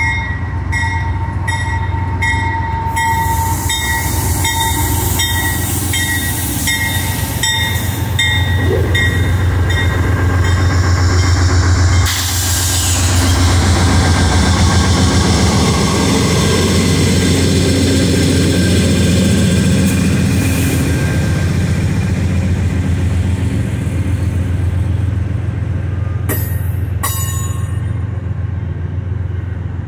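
Amtrak passenger train rolling past. The lead GE P42DC's bell rings at a steady beat over the diesel drone for about the first ten seconds. Then the trailing GE Dash 8 diesel passes, louder, followed by the passenger cars rolling by, with a couple of sharp wheel clanks near the end.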